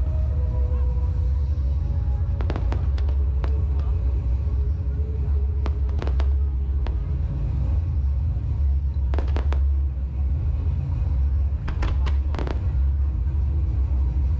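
Fireworks display: aerial shells bursting with sharp cracks every few seconds, several in quick clusters, over a constant low rumble.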